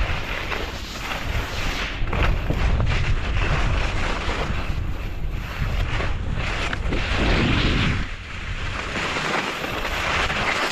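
Wind buffeting a skier's camera microphone at speed, over the hiss and scrape of skis carving across chopped-up packed snow. The wind rumble eases near the end as the pace slows.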